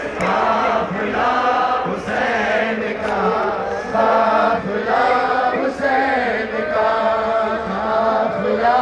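Male reciter chanting a nauha, a Shia mourning lament, into a handheld microphone, in repeated sung phrases about a second long.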